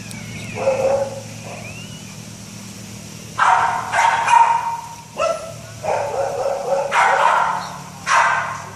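Great Dane puppy barking and yipping in bouts: one short call about a second in, a dense string of barks through the middle, and one more bark near the end.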